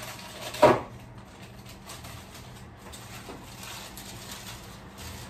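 A single sharp knock about half a second in, followed by quiet room noise with a faint low hum.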